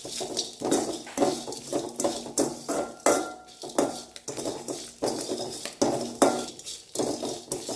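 A spoon scraping around a kadai, stirring roasted spices, herb leaves and tamarind in the pan's leftover heat with the stove off, in short strokes about two a second.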